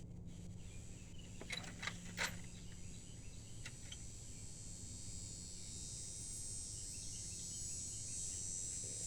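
A few light clicks and knocks from hand tools being fitted to the intake plenum bolts, mostly in the first four seconds. Under them is a steady low hum and a high, insect-like drone that grows louder in the second half.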